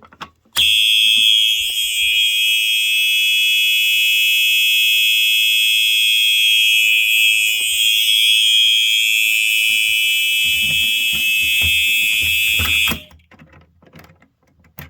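Simplex 4903 horn/strobe's electronic horn sounding a loud, steady, high-pitched tone for about twelve seconds, then cutting off suddenly. It starts just after a click, set off by a manual fire alarm pull station being pulled.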